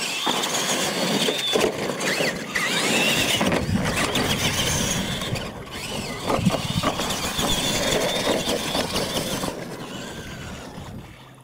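Two R/C monster trucks accelerating hard on a dirt track. Their motors and gears give a high whine that wavers with the throttle, fading out near the end.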